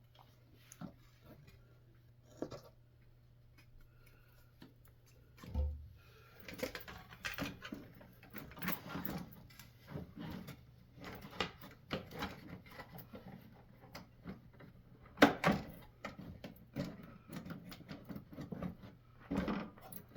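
Repair work on a refrigerator: scattered clicks, taps and scrapes of tools and metal parts being handled, sparse at first and busier from about six seconds in, with one sharp knock about fifteen seconds in. A low steady hum runs underneath.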